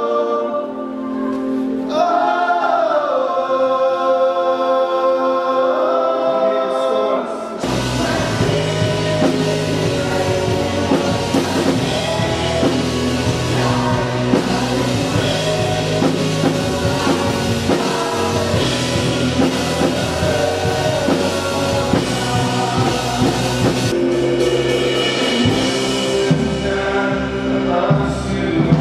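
Live worship band playing and singing. For the first seven seconds or so the voices sing over a soft accompaniment; then drums and bass come in and the full band plays on.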